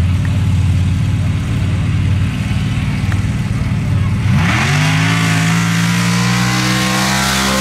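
Pro Stock dirt drag truck's engine idling with a choppy beat at the start line, then about four seconds in launching at full throttle: the pitch climbs sharply and holds high as the truck runs down the dirt track.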